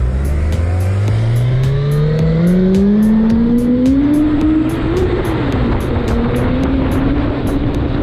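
A motorcycle engine accelerating: its pitch climbs steadily for about four and a half seconds, wobbles briefly, then holds steady at speed over rushing wind noise. Music with a quick, even ticking beat plays underneath.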